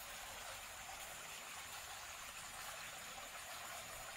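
Faint, steady rush of a shallow forest stream flowing over stones, with a thin steady high tone above it.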